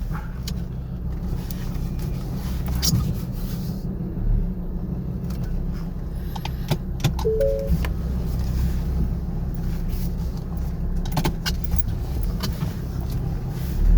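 Car engine running at low speed inside the cabin while manoeuvring into a parking space, a steady low rumble with scattered clicks and rattles. A brief two-note beep sounds about seven seconds in.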